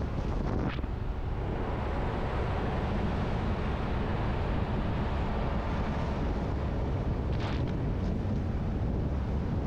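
Wind rushing over the microphone of a camera held out of a moving vehicle's window at highway speed, over the steady low rumble of the vehicle and its tyres on tarmac. Brief louder hissing gusts come about a second in and again later on.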